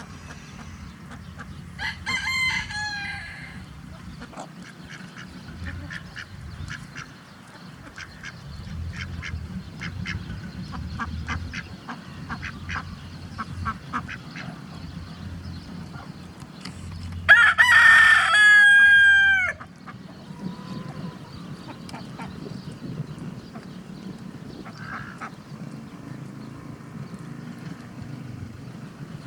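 Leghorn rooster crowing: one loud crow of about two seconds, roughly two-thirds of the way in. A shorter, fainter crow comes near the start, and hens cluck in between.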